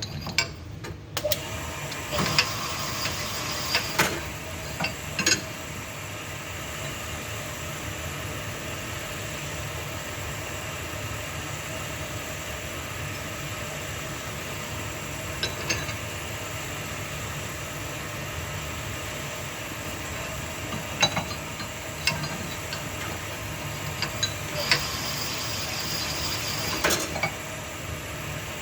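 Connecting-rod honing machine starting about a second in and running steadily while a rod bore is stroked over the honing stone to bring it to final size. Occasional sharp metallic clicks and knocks sound over the steady run.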